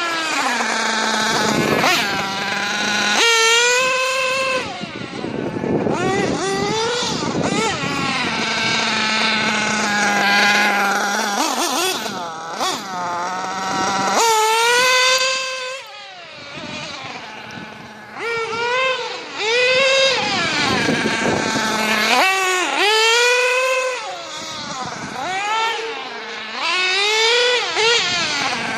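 Small nitro engine of a Losi radio-controlled car, held at a steady idle between repeated throttle blips, its pitch rising and falling sharply with each rev while it is being tuned.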